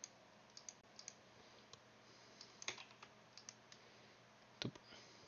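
Faint, scattered clicks of a computer keyboard and mouse, about a dozen irregular taps, with one louder click near the end.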